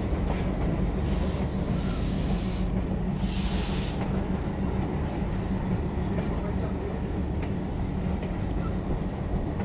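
A pair of Alco WDM3A diesel locomotives with 16-cylinder Alco 251 engines chugging slowly at low power: a steady low engine rumble heard from the first coach. About a second in there are bursts of hiss that stop about four seconds in.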